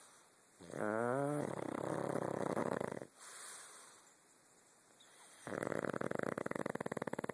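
Snoring: two long, rattling snores, the first starting about half a second in and the second in the last two seconds, with a softer breath between them.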